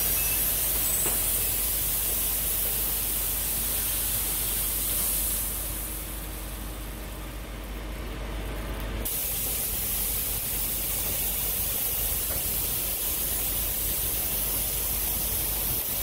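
Grain pouring from a spout onto a pile in a steel grain bin: a steady rushing hiss. It eases off about six seconds in as the flow stops, then a steady hiss returns abruptly about nine seconds in.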